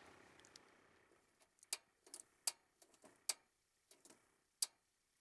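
Push-button piezo igniter of a portable propane heater clicking as it is being lit: about a dozen sharp, faint clicks at irregular intervals over about three seconds.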